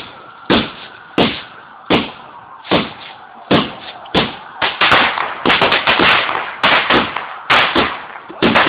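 Fireworks going off: single sharp bangs at a steady pace of roughly one every 0.7 seconds, then from about five seconds in a dense, crackling barrage of rapid bangs.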